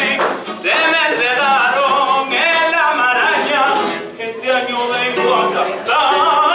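A man singing solo in long, ornamented notes whose pitch wavers and bends.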